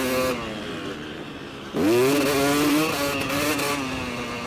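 Motocross bike engine on track: it runs lower and falls off throttle, then a little under two seconds in it is opened up sharply and revs high, holding as the bike pulls.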